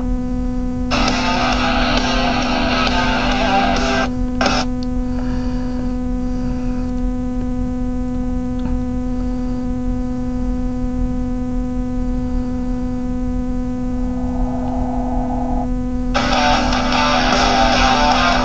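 Loud, steady electrical mains hum with a buzz of evenly spaced overtones. Over it, bursts of rock music with distorted guitar come in at about one to four seconds and again near the end.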